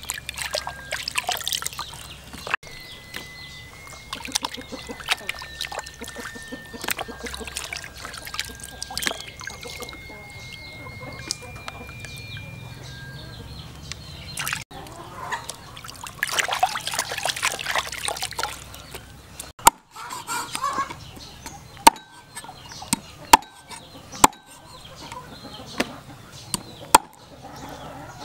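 Water splashing and sloshing as skinned frogs are rubbed and rinsed by hand in a plastic basin, with chickens clucking in the background. In the last several seconds a knife chops on a wooden chopping board: about six sharp, separate chops, the loudest sounds here.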